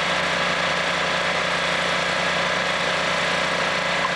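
Fire engine's engine running steadily, driving its water pump: a low steady hum under an even rushing noise.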